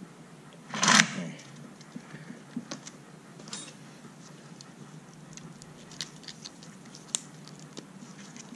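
Small metallic clicks and clinks of a feeler gauge set being handled while setting the valve clearance, with one louder clatter about a second in.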